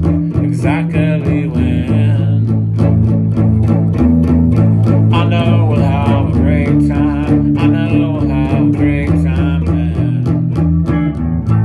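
Electric guitar playing an instrumental passage over a backing of bass and a steady beat.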